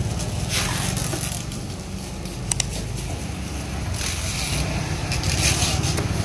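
Outdoor market background: a steady low rumble, with short bursts of rustling and scraping and two sharp clicks, one midway and one near the end.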